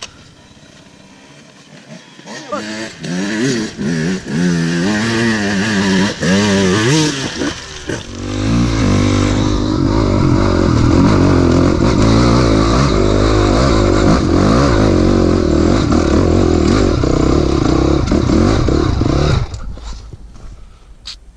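Enduro dirt bike engines. First one revs up and down over and over, with the pitch rising and falling on the throttle as it climbs a loose rocky slope. From about eight seconds in a bike runs loud and steady under throttle, heard close from on board, and it falls away shortly before the end.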